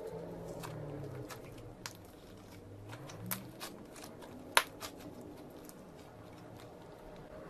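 Slime being handled, squeezed and poked, giving scattered sharp clicks and pops, the loudest a little over halfway through, over a faint low hum that slides up and down in pitch.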